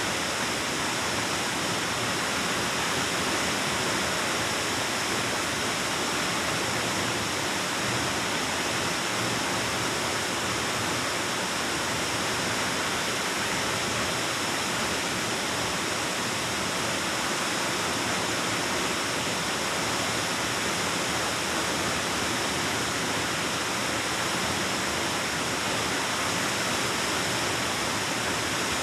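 Waterfall rushing steadily into a cave, with no change in level.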